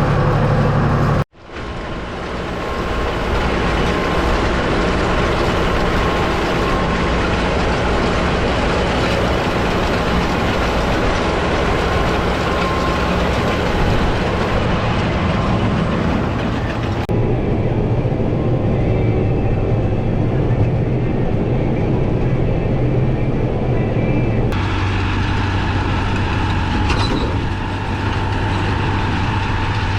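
Farm tractor engine running steadily while working hay, with the hay machinery running behind it. The sound cuts out sharply for a moment about a second in and shifts abruptly twice later on.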